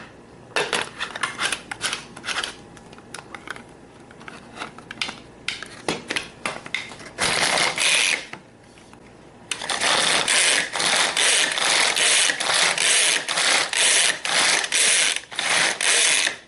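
Hand-powered pull-cord food chopper chopping a carrot. First come scattered clicks and knocks, then a single pull, and from about halfway a quick, even run of cord pulls, about three a second, with the blades spinning through the carrot.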